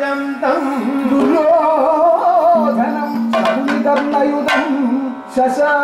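Kathakali stage music: a singer's wavering, ornamented melody over a steady held tone, with sharp percussion strokes a few times in the second half.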